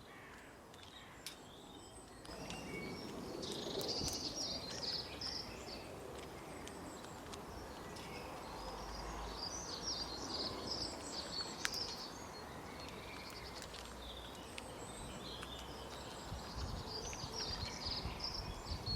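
Small birds chirping in clusters of quick high notes, several times, over a steady outdoor background hiss.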